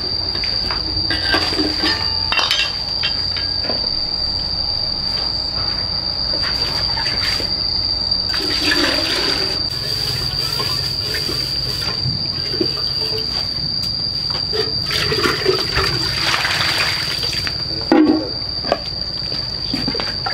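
Water sloshing and pouring as a kettle is washed out by hand, in two stretches of a couple of seconds each, over a steady high-pitched insect call.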